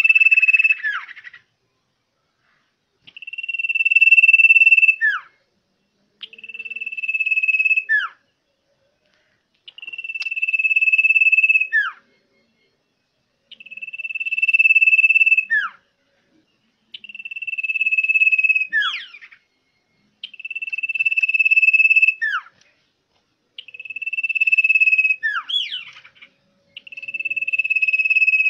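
Common iora (cipoh) singing: a long, steady, high whistle held about two seconds and swelling in loudness, ending in a quick downward slur. The phrase repeats about every three and a half seconds.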